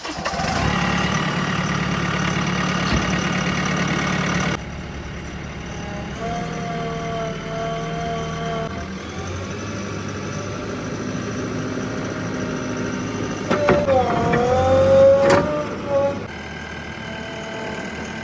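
Diesel engines of a backhoe loader and tractors running steadily. The engine sound shifts abruptly twice. A louder wavering tone rises and falls between about 13 and 16 seconds in.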